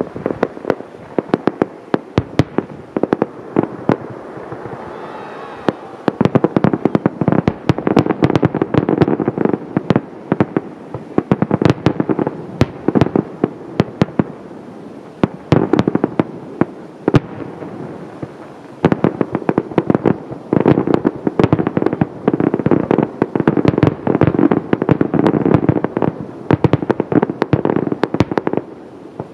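Fireworks display: a dense, continuous barrage of sharp bangs and crackling, in heavy volleys with a rumbling echo between them, easing briefly around a third of the way in and again just before the last stretch.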